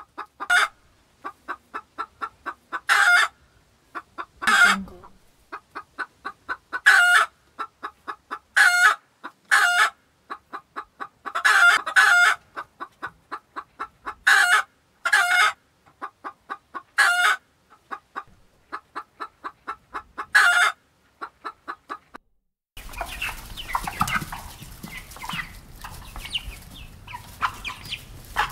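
Hen cackling: runs of short clucks, each ending in a louder drawn-out squawk, repeated about a dozen times. About 23 seconds in it switches to a noisier recording of chickens clucking over constant background noise.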